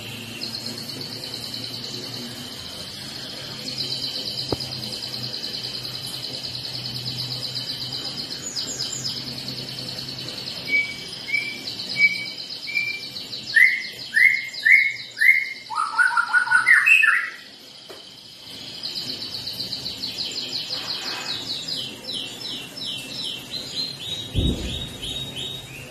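White-rumped shama singing in its cage just after a bath. Its song is long, fast, high trills, with a run of loud, lower whistled notes stepping down in pitch in the middle.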